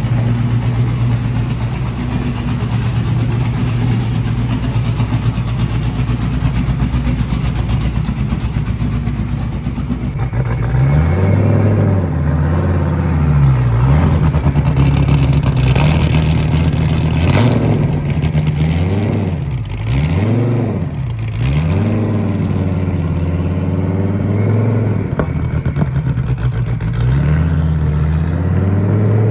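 Dodge Viper ACR-X's 9.0-litre stroker V10 idling steadily, then, about ten seconds in, revved again and again in quick rises and falls before dropping back to idle and rising once more near the end. Loud.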